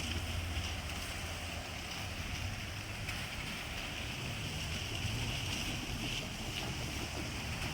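Diesel railcar running with a steady low engine rumble, with wind noise on the microphone.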